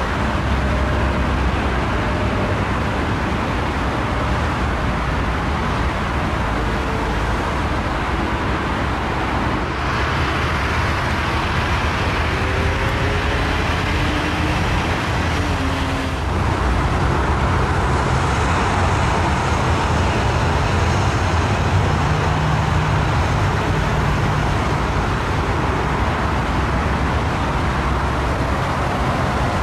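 Jet airliner engine noise over a steady airport rumble, changing in character about ten and again about sixteen seconds in, with a faint high whine from about eighteen seconds in.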